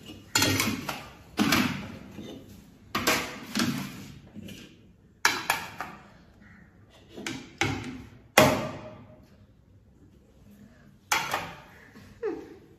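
Stainless steel plates being stacked and set down on a table, a string of clattering metallic clanks with short ringing tails.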